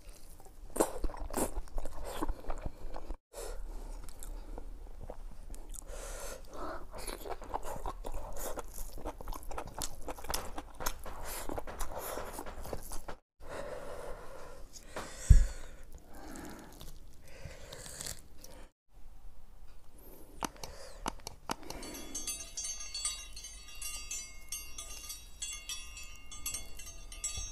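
Close-miked chewing and crunching as curried mutton is eaten by hand, with wet, smacking mouth sounds. A sharp thump comes about 15 seconds in. From about 22 seconds a tinkling chime jingle plays.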